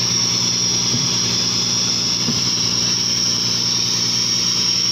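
Fishing boat's engine running steadily at an even speed, a constant low drone with a thin high whine above it.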